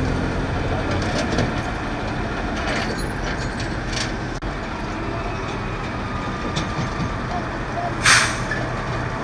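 Flatbed tow truck working at idle with a steady low mechanical noise; its engine note drops away about a second in. A short, loud hiss comes about eight seconds in.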